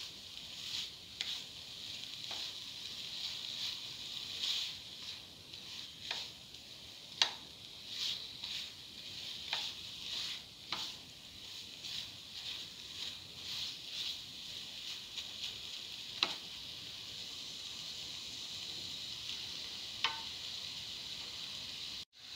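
Ground coconut, tomato and green chilli paste sizzling in a hot oiled pan while a spatula stirs and scrapes it, with sharp taps of the spatula against the pan. The strokes come often at first and grow sparse in the second half, leaving a steady sizzle.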